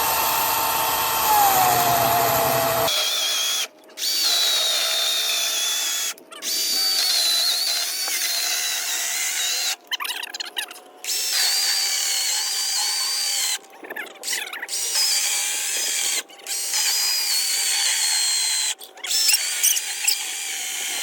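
Battery-powered chainsaw with a freshly sharpened chain cutting through a thick tree branch. Its motor whine drops in pitch as the chain bites into the wood, then the saw runs in bursts, stopping briefly and starting again several times.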